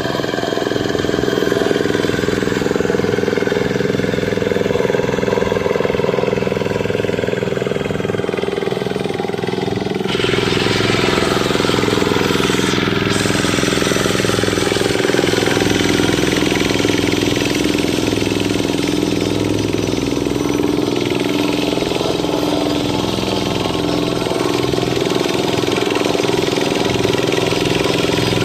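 Dongfeng single-cylinder diesel engine of a Quick Impala two-wheel hand tractor running steadily. About ten seconds in, a rougher, noisier edge comes into its sound.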